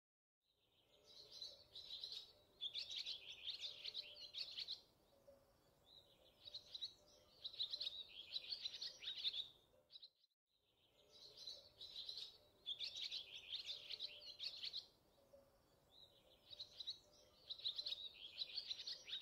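Small birds chirping in dense clusters of high calls, a recorded birdsong track that loops and repeats itself after about ten seconds.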